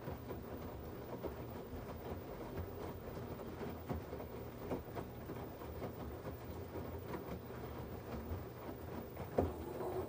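LG 17 kg front-loading washing machine tumbling a wet load of laundry: a steady low motor hum under water sloshing and irregular soft thumps of the clothes dropping in the drum, with one sharper knock near the end.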